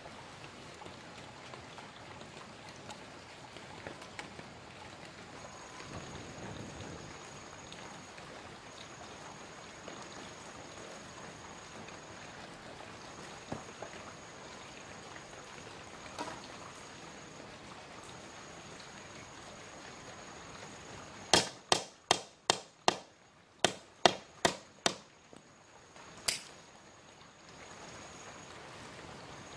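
About ten sharp knocks in quick succession, a knife blade chopping into wood, over a steady quiet hiss; the knocks come in a run about three quarters of the way through.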